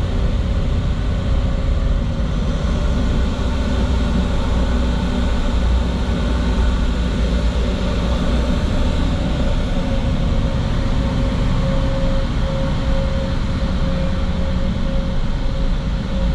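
Steady, low engine rumble with a constant faint hum in it.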